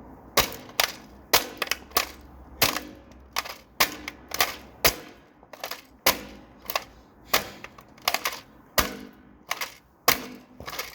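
A pink plastic toy cash register being struck hard again and again, about two or three irregular blows a second, its plastic casing clattering and cracking; some blows leave a brief ring.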